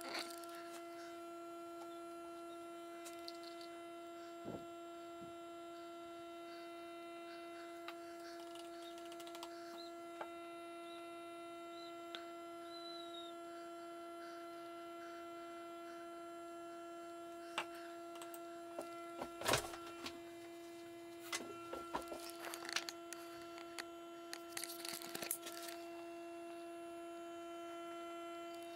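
A steady hum, one even pitch with overtones above it, with a few light knocks and clatters in the second half.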